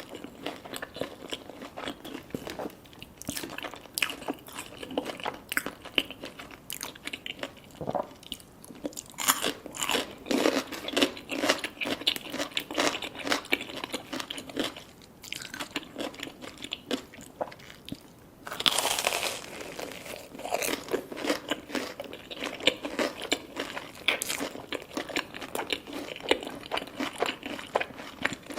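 Close-miked eating: crunching bites into crispy fried food and chewing, a steady run of irregular crisp crackles, with one longer, denser crunch about two-thirds of the way through.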